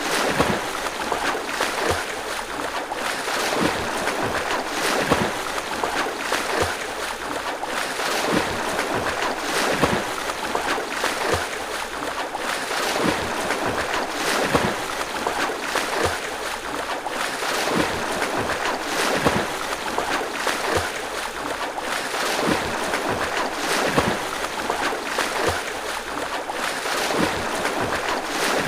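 A swimmer's strokes splashing through water, a splash about every second over a continuous wash of churned water.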